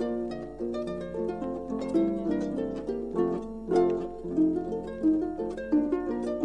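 Solo harp playing a cheerful Tyrolean folk piece, quick runs of plucked notes and chords, played back from a vinyl 45 rpm record.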